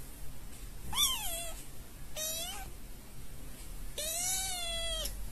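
Small kitten meowing three times: a short mew that rises and falls about a second in, a briefer one a second later, and a longer drawn-out mew near the end.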